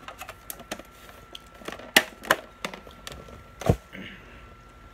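A run of sharp clicks and knocks from a plastic food container and fork being handled. The loudest come about two seconds in and again near the end.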